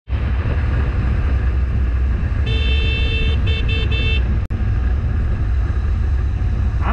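Heavy low wind and road rumble from riding a motorcycle on the road. Another vehicle's horn honks about two and a half seconds in: one longer blast, then two short ones. The sound cuts out for an instant just past the middle.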